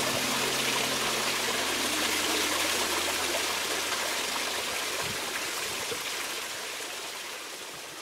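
Small cascade of water trickling and splashing over rocks, a steady rush that gradually fades toward the end.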